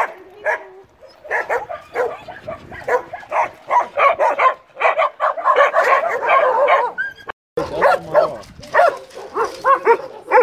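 Many dogs barking and yelping at once in quick, overlapping barks, thickest a little past the middle. The sound drops out for an instant about seven seconds in, then the barking goes on.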